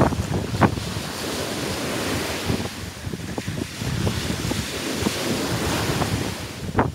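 Wind buffeting the microphone over the wash of ocean surf breaking on a beach.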